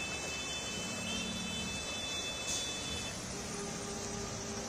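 Cars driving slowly through floodwater on a waterlogged road: a steady wash of tyres churning and swishing through water over running engines. A faint high steady tone stops about three seconds in.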